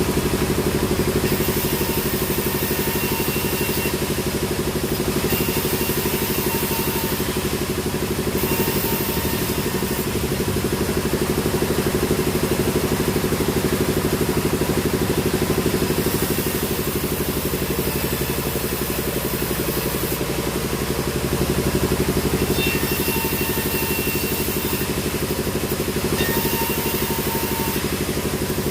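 Sawmill machinery running steadily with an engine-like hum, joined every few seconds by a high hiss and thin high tones that come and go.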